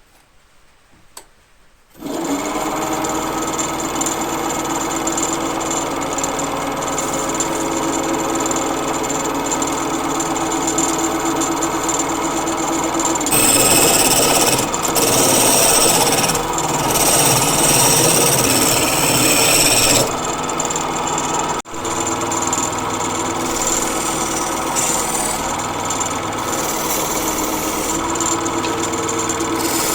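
A wood lathe starts about two seconds in and runs steadily with a motor hum. A turning tool cuts the spinning wood, loudest and hissiest for several seconds around the middle.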